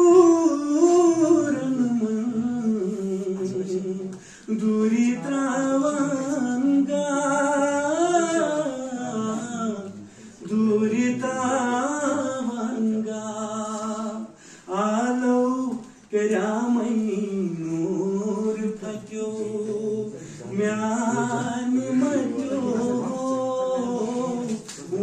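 A man singing solo without accompaniment, in long held, wavering phrases with short pauses for breath between them.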